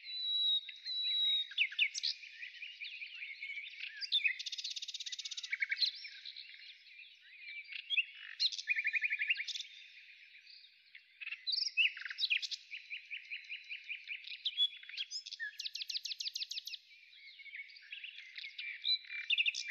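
Birdsong: many chirps and whistled notes with several fast rattling trills, some calls overlapping.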